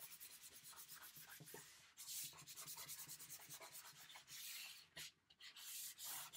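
A light brick-coloured pastel rubbing across paper in quick, repeated back-and-forth strokes as an area is coloured in, with a few longer, louder hissing passes.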